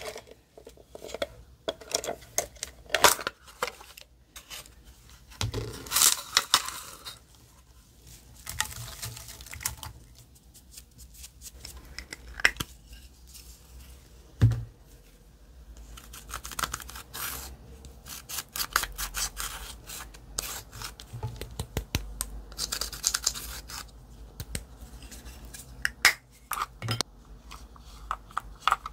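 Slime being squeezed, stretched and folded by hand, making irregular sticky clicks and crackles.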